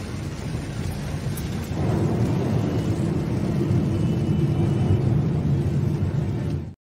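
Steady road noise inside a moving car's cabin, tyres and engine on a rain-soaked road. It grows louder about two seconds in and cuts off abruptly near the end.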